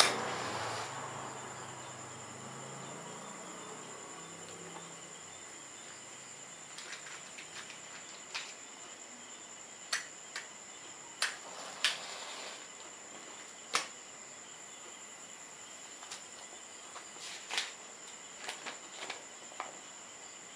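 Quiet room with a steady high-pitched whine and a scatter of short sharp clicks and scrapes from hands handling small objects, the loudest clicks about ten to fourteen seconds in and near the end.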